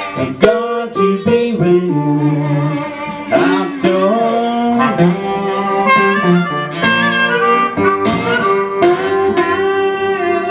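Blues harmonica playing long held and bent notes over a plucked guitar, with sharp string attacks here and there.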